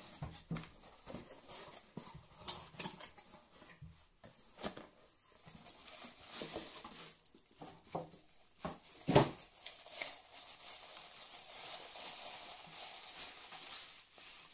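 Cardboard box flaps being opened and handled with small knocks and scrapes, then a single sharp knock a little past halfway. After it comes a steady crinkling of the clear plastic bag being pulled off a ceramic mug.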